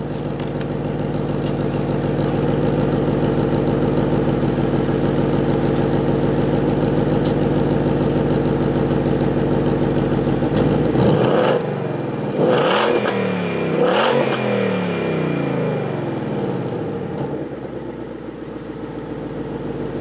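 Supercharged 2019 Ford Mustang GT's 5.0 V8 idling through its stock exhaust, then revved three times in quick succession about halfway through before settling back to idle. The engine is being run and blipped to check for smoke after a random multiple-cylinder misfire code, and the owner reports it idling fine.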